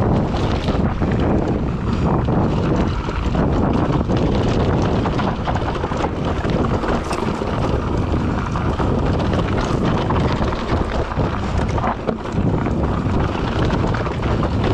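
Wind rushing over the microphone together with the rattle of a mountain bike rolling down a rough, rocky dirt trail, with many small knocks from the bike and its tyres over stones.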